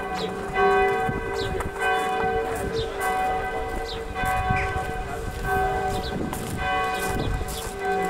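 Several bells of Chartres Cathedral ringing together, struck about once a second, their overlapping tones sounding on between strokes.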